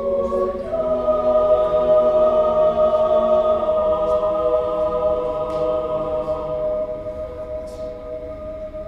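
Mixed choir singing a long held chord that moves to a new chord less than a second in, then is sustained and slowly fades before being released right at the end.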